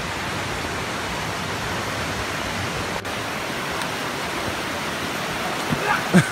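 Steady rush of a rain-swollen creek tumbling over rocks and small falls. Near the end, a couple of short knocks.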